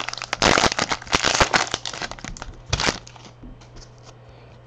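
A trading-card pack wrapper being torn open and crinkled. There is a dense run of crackling for about a second and a half, a last crinkle near three seconds in, then quieter handling.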